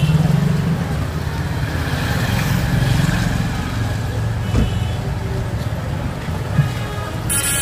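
Road traffic running close by, a steady low engine rumble. A vehicle horn starts to honk near the end.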